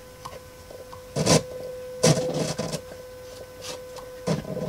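Steady sine-wave test tone through a 1976 Playmaster Twin 25 kit amplifier, broken by bursts of scratchy crackling about a second in, around two seconds in and near the end as the front-panel knobs are turned: scratchy, dirty potentiometers, the balance pot among them.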